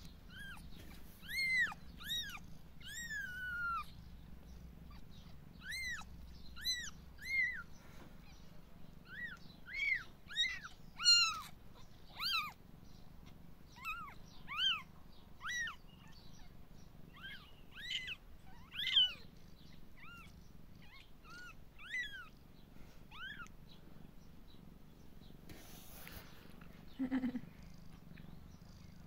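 A newborn kitten, about three days old, mewing in thin, high-pitched squeaks: many short calls that rise and fall, about one or two a second, thinning out after about twenty seconds. A low, steady purr runs underneath, and one lower-pitched call comes near the end.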